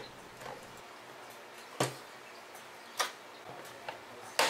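Three sharp clicks or knocks about a second apart, with a few fainter ticks between them, from a hand handling and setting down a plastic ammo box fitted with speakers.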